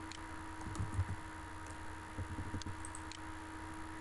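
Faint computer keyboard typing and scattered clicks while a value is entered, over a steady low electrical hum, with a few soft low thuds about a second in and again after two seconds.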